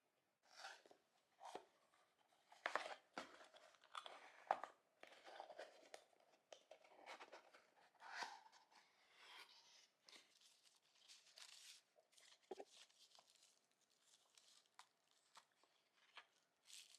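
Faint, irregular rustling and crinkling with a few sharper crackles, like paper or plastic being handled and torn.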